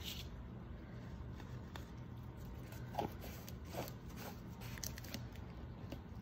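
Small clicks and light knocks of a plastic paint cup and painting tools being handled and set down, the sharpest knock about three seconds in and a few more soon after, over a steady low hum.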